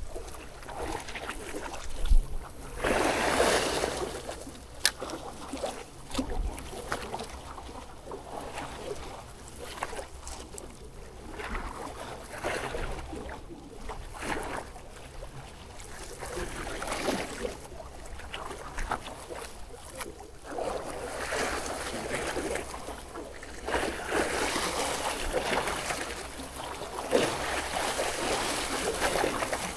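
Small sea waves washing and splashing against a rock seawall, swelling and fading in repeated surges every few seconds, over a steady low rumble of wind on the microphone.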